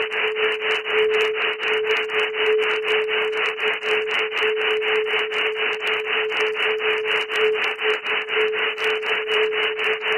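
Synthesized 'sound pharmaceutical' track, billed as strengthening the immune system. A band of hiss pulses evenly about four to five times a second, like rapid rubbing, over a steady mid-pitched hum.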